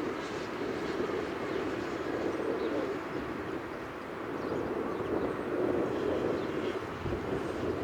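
Socata TB-20 Trinidad's six-cylinder Lycoming piston engine and propeller at takeoff power, a steady drone that eases slightly midway and grows louder toward the end.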